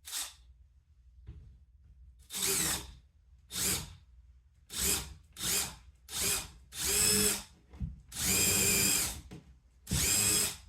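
Power drill boring a hole into a wall in short trigger bursts: a brief one at the start, then about eight more from two seconds in, each half a second to a second and a half long, the longest near the end.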